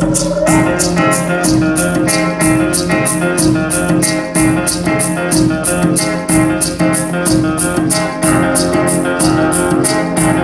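Recorded music played through Viva Audio horn loudspeakers: a steady high ticking beat about four times a second over held low tones and a busy melody.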